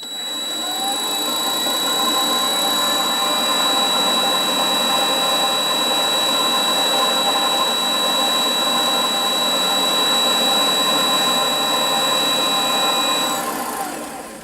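Small bench lathe's motor and drive running: it spins up over about two seconds to a steady high whine, runs evenly, then winds down near the end.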